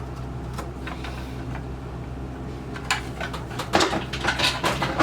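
Rustling and light knocks of parts and papers being handled in a box, starting about three seconds in and busiest near the end, over a steady low hum.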